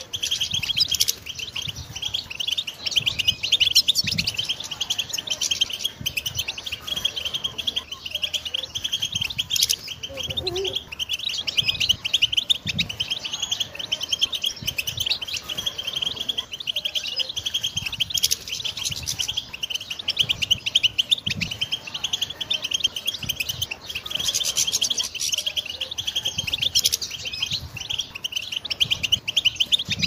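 European goldfinch singing: a continuous run of rapid, high twittering notes with hardly a pause.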